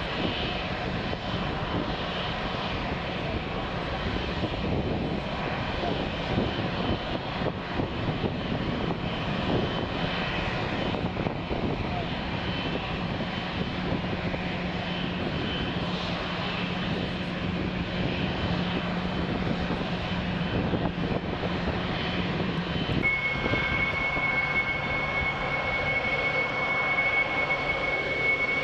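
Boeing 777's twin jet engines running at low taxi power as the airliner taxis: a steady jet rush with a low hum. About 23 seconds in the sound changes abruptly and a steady high-pitched engine whine comes in.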